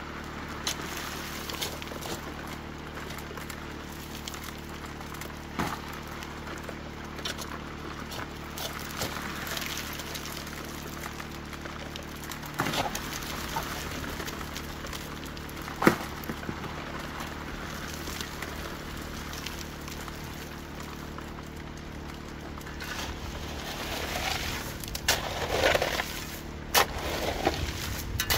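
Shovel scraping and crunching into loose sand and gravel every few seconds, with a sharp knock about two-thirds of the way through and quicker strokes near the end. Under it the highbanker's water pump hums steadily.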